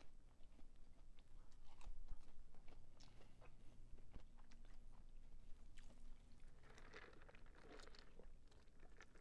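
A person chewing crisp fried fast food close to the microphone: a run of short, irregular crunches with open-mouthed chewing.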